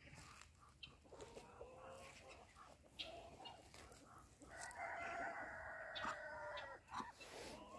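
A rooster crows once, a long call of a little over two seconds that starts past the middle. Softer, shorter bird calls come before it.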